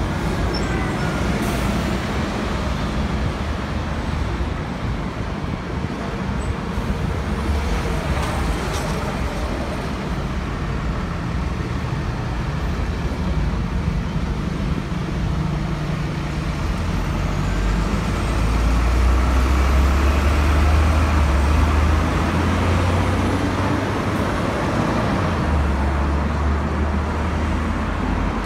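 Busy city-street road traffic: engines and tyres of passing cars and buses in a steady rumble. The low engine rumble grows louder for a few seconds past the middle, then eases.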